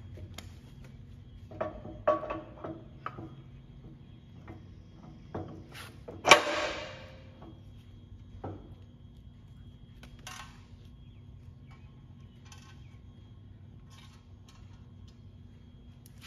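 Scattered metal clinks and taps as a steel pin and its bolts are fitted into the hydraulic cylinder mount of a towable backhoe, with one loud ringing metal clank about six seconds in and a few fainter ticks later. A faint steady hum sits underneath.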